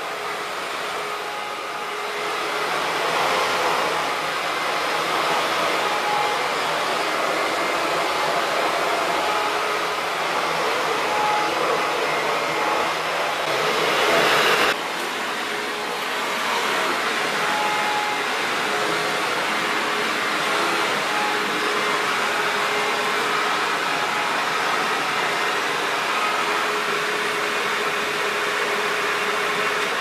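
Maytag WindTunnel bagless upright vacuum cleaner running steadily while pushed over carpet, briefly louder about halfway through.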